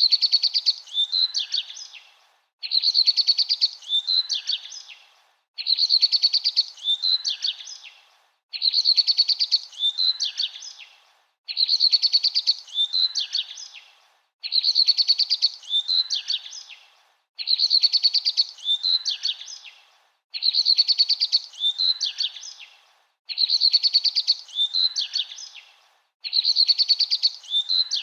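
Bird song: one short chirping phrase repeated identically about every three seconds, with brief pauses between, like a looped recording.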